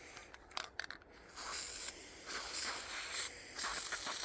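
Aerosol can of PJ1 foam filter oil spraying in three or four short bursts onto a foam chainsaw air filter to saturate it, after a few faint clicks about a second in.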